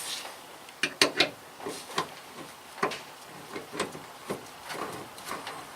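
Scattered light clicks and knocks, about one or two a second, from an oil filter, pre-filled with oil, being handled and threaded onto a dual filter relocation mount.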